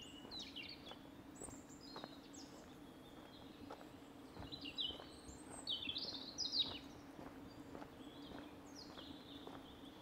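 Songbirds chirping and singing in quick high phrases, loudest around the middle, over soft footsteps about twice a second.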